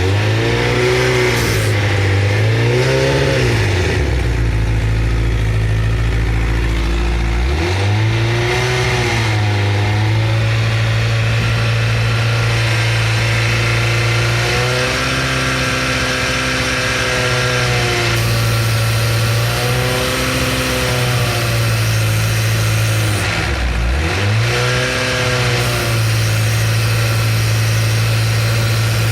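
Honda CBR1000RR Fireblade's inline-four engine running, its revs rising and falling several times between stretches of steady running. It is recorded for an abnormal rattle and vibration noise whose cause the owner does not know.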